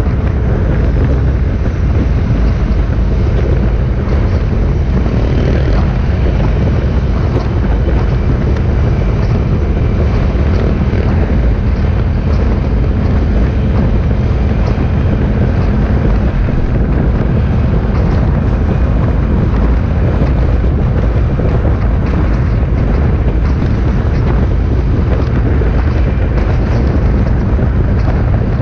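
Motorcycles running in a large parade: a steady, loud mass of engine noise with wind buffeting on the microphone.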